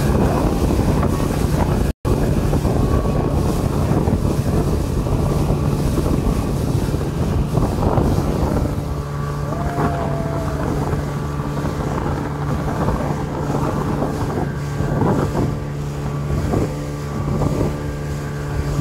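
Speedboat engine running steadily at speed, with wind buffeting the microphone and water rushing past the hull. The sound drops out for an instant about two seconds in.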